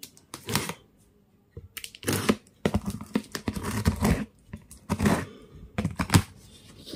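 Packing tape on a cardboard carton being slit along its seam with a pen tip and torn open, in a string of uneven scratchy rips.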